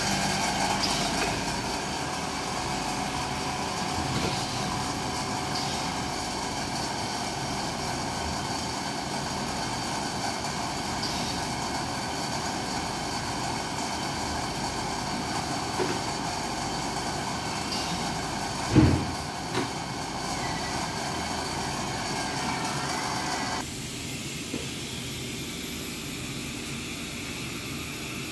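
Steelco VS6/2 steam sterilizer running steadily with its vacuum pump drawing the chamber down during a test cycle. A loud thump comes about two-thirds of the way through. A few seconds later the pump cuts off suddenly, leaving a quieter machine hum.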